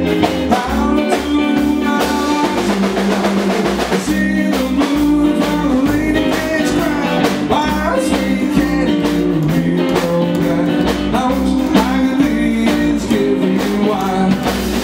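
Live rockabilly band playing: upright double bass, electric guitar and drum kit, with a voice singing over them.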